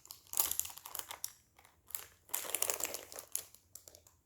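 Packaging wrap crinkling and rustling in irregular bursts with small clicks as a new keyboard is handled and lifted out of its box.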